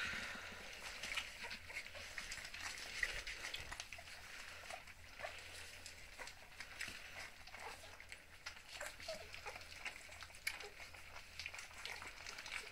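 Three-week-old puppies eating their first solid food, soft mince, from a metal saucer: steady wet lapping and smacking with many small clicks and rustles, and an occasional faint squeak.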